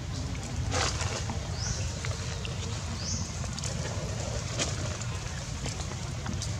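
Outdoor background: a steady low rumble with scattered clicks, and two short, high, rising chirps about a second and a half apart.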